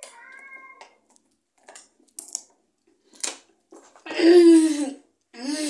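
People drinking from bottles: a faint hum, then short swallowing and lip clicks, followed by two loud, raspy, strained vocal noises of disgust about four seconds in and near the end, as the foul-tasting drink goes down.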